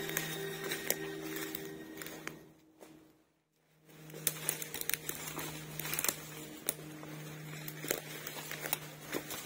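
Footsteps crunching and crackling through dry leaf litter and twigs, with branches brushing past, over a low steady hum. The sound drops out briefly about three seconds in, then the crunching steps resume.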